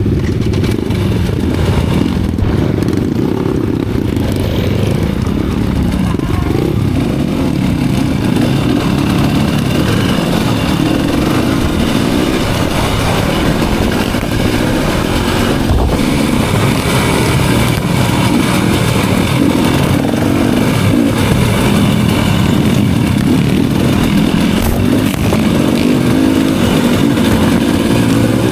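Enduro dirt bike engine running steadily while being ridden along a trail.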